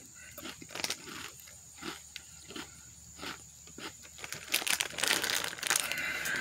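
Crunchy chips being chewed, a short crunch about every two-thirds of a second, then from about four and a half seconds in a Hot Cheetos bag crinkles steadily and louder as it is lifted and tipped toward the mouth.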